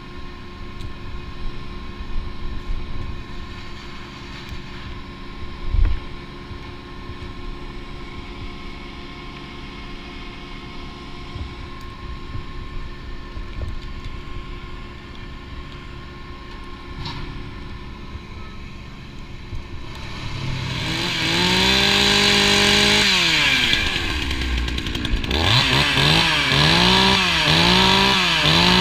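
Two-stroke chainsaw started up about two-thirds of the way through, running at high revs, dropping to idle, then blipped up and down several times before holding at full throttle. Before it, low rope and gear handling noise with one thump about six seconds in.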